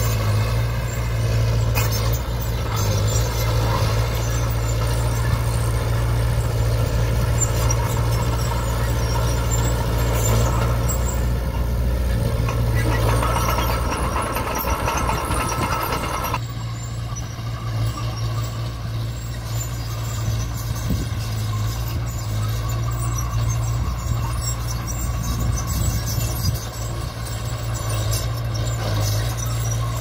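Diesel earthmoving machinery running under load with a deep steady engine drone, overlaid with squealing and clatter. The higher-pitched noise cuts off abruptly a little past halfway, leaving mainly the engine drone.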